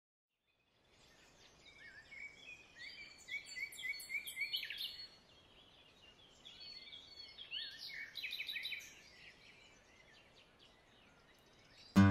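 Birds singing over a faint outdoor hiss, in two bouts of short chirping notes that include a run of quick repeated notes. Music cuts in loudly at the very end.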